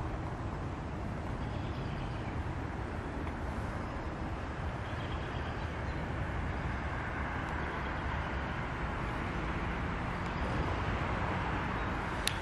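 Steady outdoor background noise of distant road traffic, an even rumble and hiss with no distinct events.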